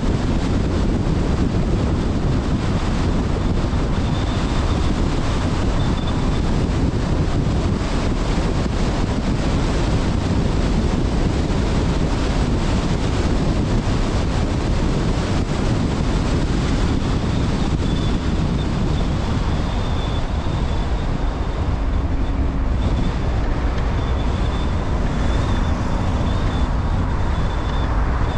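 Steady road and wind noise from a car driving at speed, a continuous low rumble of tyres and engine with no distinct events.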